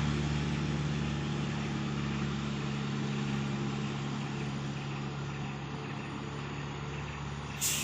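Bus engine running at a low, steady drone, gradually getting quieter.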